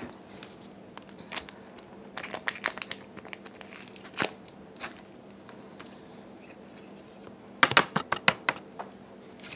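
Pokémon booster pack wrappers crinkling as they are handled, in bursts of crackling about two to three seconds in, briefly around four seconds, and again near the end.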